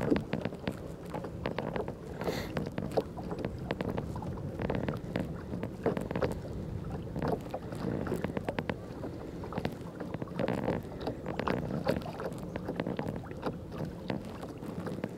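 Fishing kayak moving across a lake: water lapping against the hull, with many small irregular clicks and knocks.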